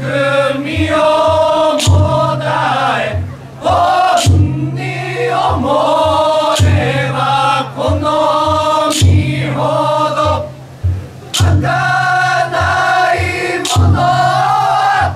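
A chorus of young men singing a danjiri uta, a festival float song, in unison with long held notes and short pauses for breath. Under the voices runs a steady low beat, with a sharp click about every two and a half seconds.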